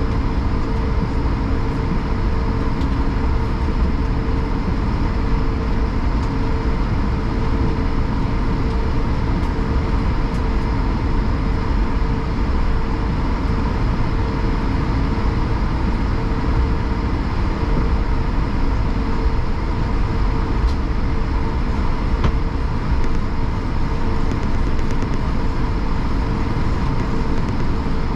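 Steady cabin noise of an Airbus A220 taxiing, heard from inside the cabin: the Pratt & Whitney PW1500G geared turbofans running at low power, a low rumble with a steady hum over it.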